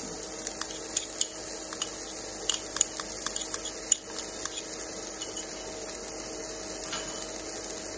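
Chopped ginger and garlic sizzling in hot, foaming butter and olive oil in a frying pan: a steady hiss with scattered small pops and crackles, most frequent in the first few seconds, over a faint steady hum.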